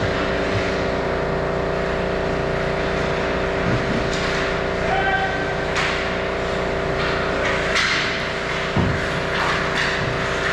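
Ice hockey rink sounds: a steady droning hum with hiss, skates scraping the ice, and a few sharp clacks of sticks and puck in the second half.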